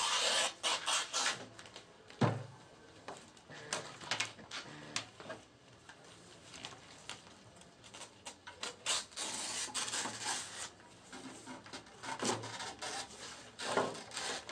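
Fresh talipot palm leaves being slit and pulled apart from the young leaf bud with a curved knife: irregular rustling, tearing and scraping strokes, with a knock about two seconds in.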